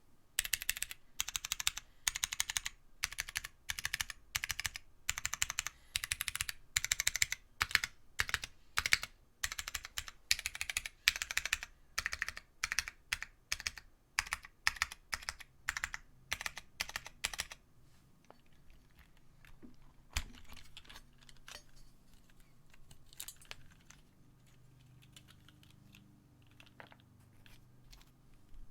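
Mechanical keyboard with vintage Cherry MX Brown tactile switches on a carbon fibre plate being typed on quickly for about the first seventeen seconds. After that only a few faint, scattered key clicks remain.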